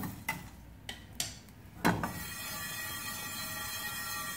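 A wooden spatula scraping and tapping a few times across a dry steel pan as whole coriander seeds are stirred while being dry-roasted. About two seconds in, the scrapes stop and a steady, even hum takes over.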